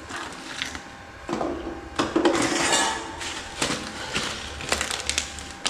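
Cooking pot and metal utensils clinking and scraping, with a longer scrape about two seconds in, as food is dished up.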